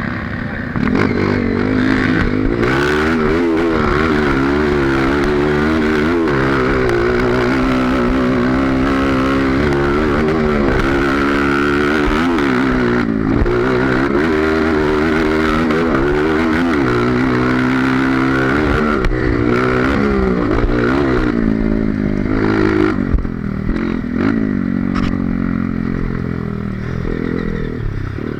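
Honda CRF230 trail bike's single-cylinder four-stroke engine running under load, its revs rising and falling every second or two as the throttle is worked. It eases off to lower, more uneven revs in the last few seconds.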